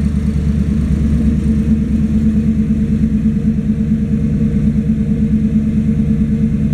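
The 429 big-block V8 of a 1971 Ford pickup truck idling steadily with an even low pulse.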